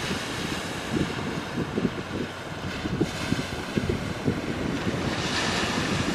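Wind buffeting the microphone over the steady wash of sea surf, with a wave breaking and hissing in about five seconds in.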